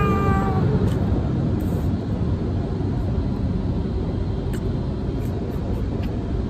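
Automatic car wash air dryer blowers running: a loud, steady rush of air that sounds like an airplane. A falling whine fades out within the first second.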